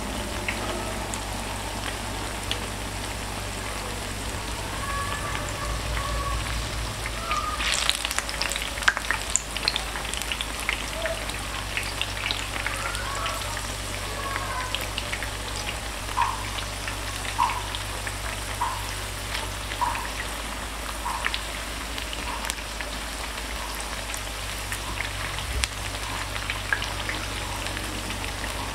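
Corn fritters deep-frying in hot oil: a steady sizzle with many sharp crackling pops, with a louder burst of crackling about eight seconds in.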